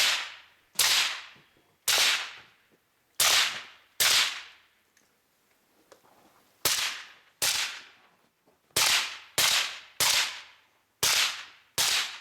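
Gunshots from a rifle and pistol course of fire: about twelve loud, sharp shots at uneven spacing, each fading out quickly, with a pause of about two seconds in the middle of the string.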